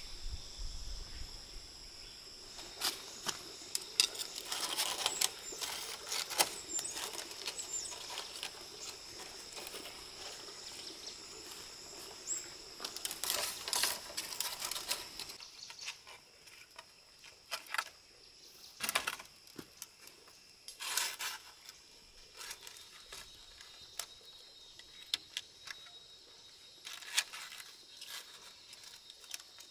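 Steady high-pitched insect chorus of crickets or cicadas, with scattered rustling, clicks and knocks that are busiest in the first half.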